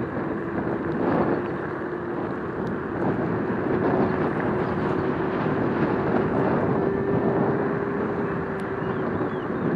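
Electric scooter riding along a cracked concrete street: a steady motor tone that drifts slightly up in pitch and back, over a constant rush of wind and tyre noise.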